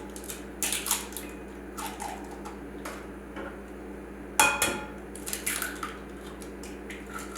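Eggs being cracked against the rim of a bowl: a few sharp taps and clinks about a second in, and again around four and a half to five and a half seconds, with the shells breaking.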